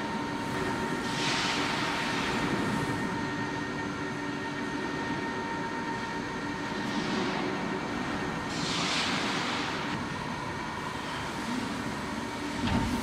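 Steady industrial machinery hum with a few fixed tones, swelling twice into a rushing hiss, and a short thump near the end.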